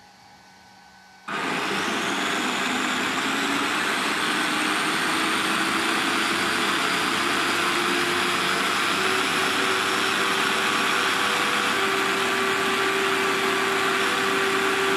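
Xinlehong 9125 RC car's electric drive motor and gear drivetrain running at full throttle with the wheels off, powered by an 11.1-volt battery instead of the stock 7.4 V. The whirring whine starts suddenly about a second in and is loud. Its pitch climbs slowly as the axles spin up, then holds steady.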